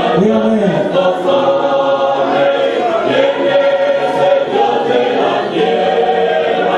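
Church choir singing a hymn, many voices together holding and moving between sustained notes.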